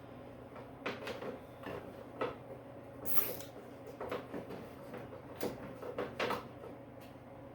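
Irregular knocks, clicks and rattles of parts and cords being handled inside a wooden shop cart, with a short scrape about three seconds in, over a steady low hum.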